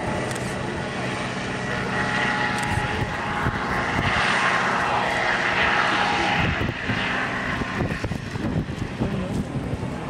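Eurocopter EC135 T2 helicopter flying low overhead: rotor noise with a steady turbine whine, loudest about four to six seconds in, then growing quieter as it moves off.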